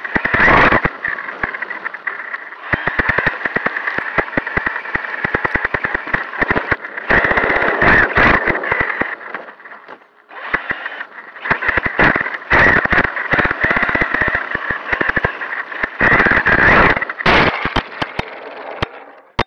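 Traxxas Sledge RC monster truck's brushless electric motor and drivetrain whining in bursts of throttle, with the chassis rattling and knocking over rough ground, heard from a camera riding on the truck. The run eases off briefly about a second in and again about halfway.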